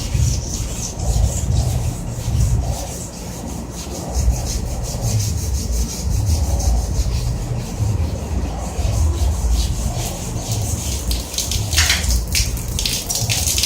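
Repeated hand rubbing strokes against a water heater's casing as it is cleaned, going in an uneven rhythm of about one or two strokes a second. Near the end, sharp crackling ticks join in.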